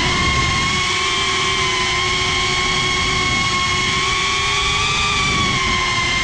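FPV quadcopter's electric motors and propellers whining steadily, as picked up by the GoPro mounted on the drone, the pitch wavering slightly with the throttle as it orbits.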